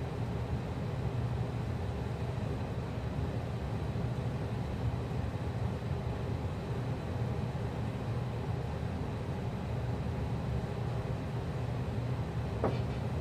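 Steady low rumbling noise with no clear rhythm, and a brief high-pitched squeak near the end.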